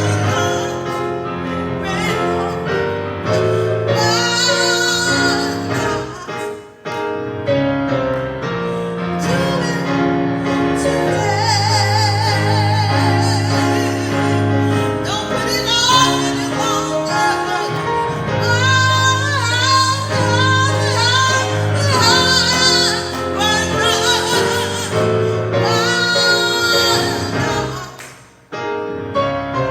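Gospel song: a woman's voice singing with heavy vibrato over sustained instrumental accompaniment, with two short breaths or pauses between phrases.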